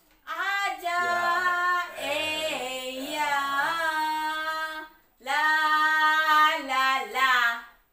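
A woman singing a simple song in Taiwanese without accompaniment, in three phrases of long held notes with a short break about five seconds in.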